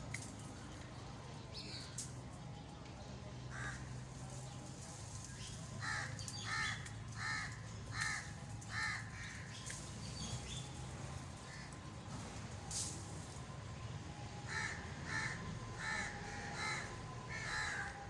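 Crow cawing in two runs of five or six short caws each, about 0.7 s apart, over a steady low background hum.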